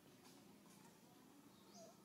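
Near silence: faint outdoor background hiss, with one brief, faint high chirp near the end.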